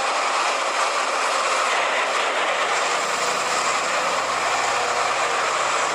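Large Caterpillar wheel loader working, its diesel engine running steadily as an even, unbroken noise as it dumps a bucket of earth into a dump truck.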